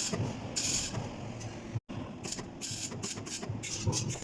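Argon arc welding: a hissing, buzzing arc that comes and goes in short, irregular spells over a steady low hum, cutting out completely for an instant a little under two seconds in.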